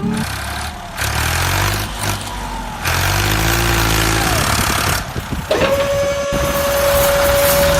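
A motor running with a rough, noisy sound. About five and a half seconds in, a steady whine starts with a short upward glide and then holds.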